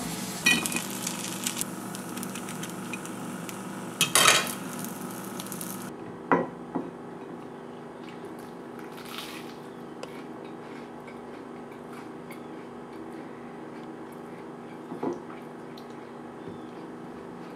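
A few short clinks and clatters of dishes and cutlery, the loudest about four seconds in, over a steady low hum.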